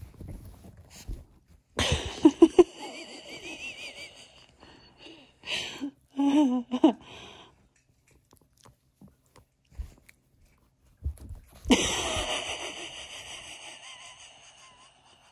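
Pomeranian puppy making wheezy, snorting breaths and a few short grunts while being petted. The loudest is one long wheezing breath about twelve seconds in that fades away slowly.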